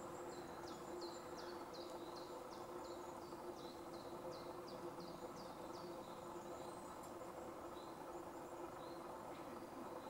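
A small bird calls a run of repeated high, falling notes, about three a second, for roughly the first four seconds, then gives a few scattered single notes. A steady low hum and background noise run underneath.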